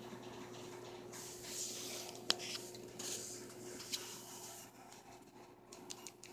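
Faint rustling and handling noise as a small hamster is held and moves over fabric and a laptop, with a sharp click a little over two seconds in and a smaller one about a second later, over a steady low hum.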